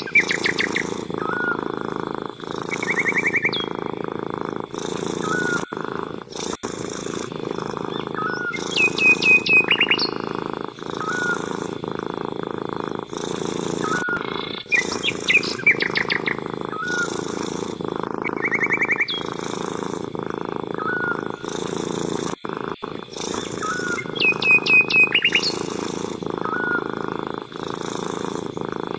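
A domestic cat purring steadily, with small birds chirping and trilling every few seconds over it.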